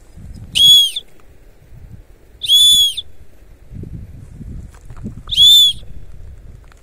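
Three loud, high whistled calls, each about half a second long with a slight rise and fall in pitch, spaced about two to three seconds apart.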